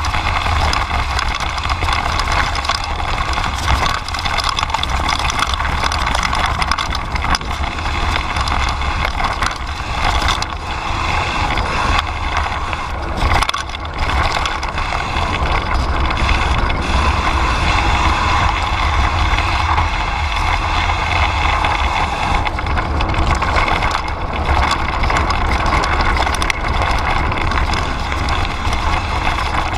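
Kellys Splash mountain bike rolling fast downhill over dirt and gravel: tyres crunching and the bike rattling and clicking over bumps, under a steady low rumble of wind buffeting the microphone.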